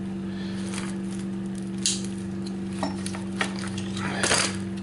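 Metal clinks of a flat-blade screwdriver and crescent wrench working a stuck case screw on an old moped engine case: a few sharp clicks, then a louder clatter near the end, over a steady low hum.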